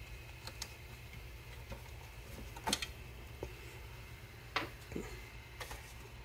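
Scattered clicks and light knocks of hands working the motor and its wire clips inside a central vacuum canister, about six in all, the loudest a little before halfway, over a faint steady low hum.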